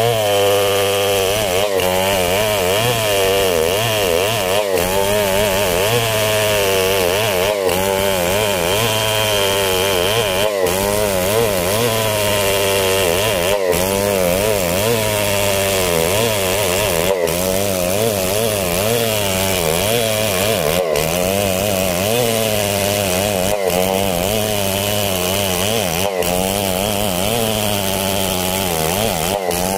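STIHL 070 two-stroke chainsaw running at full throttle under load, ripping lengthwise through a coconut trunk. The engine note holds steady, wavering slightly in pitch as the chain bites.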